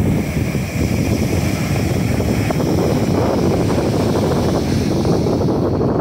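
Wind buffeting the microphone in a steady low rumble, over ocean surf breaking and washing up the sand.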